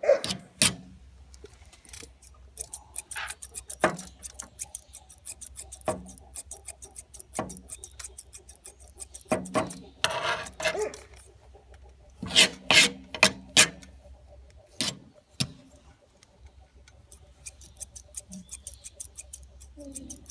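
Thinning shears snipping through a Newfoundland dog's thick hock hair in quick runs of crisp clicks, several a second, with a few louder clusters of strokes through the coat a little past the middle.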